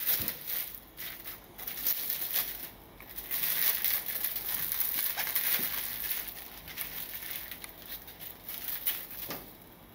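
Plastic cling wrap crinkling as it is peeled off a wedge of watermelon, a busy, irregular rustle that is loudest a few seconds in and fades near the end.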